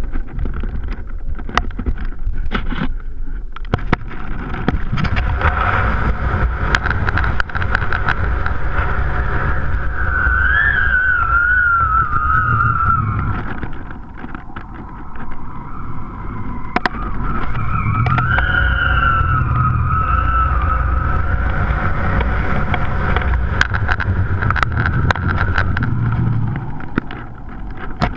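Wind buffeting the microphone of a GoPro camera carried aloft on a kite line: a steady low rumble with scattered clicks and knocks from the swinging rig. Twice, a wavering high tone comes and goes for a few seconds.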